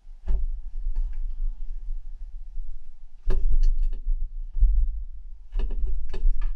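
Irregular knocks and bumps picked up by a GoPro fixed to the side of an Indesit washing machine's drum, with a low rumble. The cycle has ended and the drum is at rest, so this is handling noise from the camera and machine being touched, not the spin.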